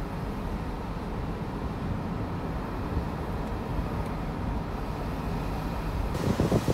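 Steady low rumble of a car driving slowly, engine and tyre noise. About six seconds in, wind starts buffeting the microphone with a hiss and gusty thumps.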